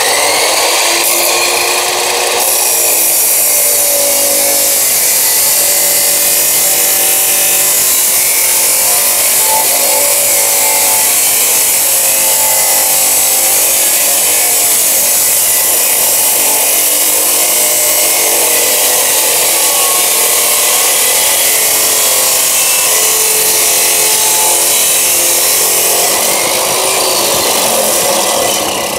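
Hukan abrasive cut-off saw starting up and grinding through a rectangular steel tube with a loud, continuous abrasive scream. The motor pitch rises over the first couple of seconds. Near the end the cut finishes, the wheel lifts clear and the motor runs on free.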